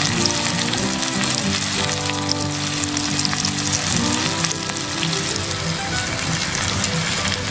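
Steak sizzling and crackling in a hot pan over glowing coals, with steady background music underneath.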